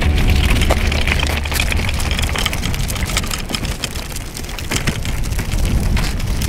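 Wheels of a loaded pull-along camping wagon rolling over a gritty sand path, with crunching footsteps: a steady low rumble scattered with many small clicks and crackles.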